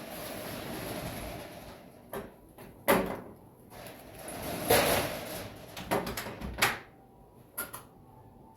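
A door being opened and shut: a series of clicks and clunks, the loudest knock about three seconds in, with a longer rushing swish around the middle.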